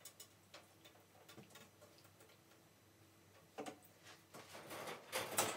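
Faint clicks and taps of wire cage grid panels and plastic connectors being handled and fitted together. Near the end comes a louder clatter of the metal grids.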